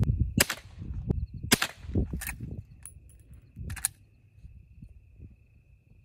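Henry lever-action rifle in .22 Magnum firing a few sharp, light cracks, spaced unevenly over the first four seconds, at a brick wall target.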